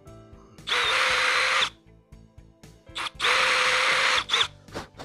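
Cordless drill with a 3/16-inch bit boring into oak, enlarging the pilot holes for trim-head pocket screws. Two runs of about a second each, one under a second in and one about three seconds in, each a steady motor whine over the sound of the bit cutting.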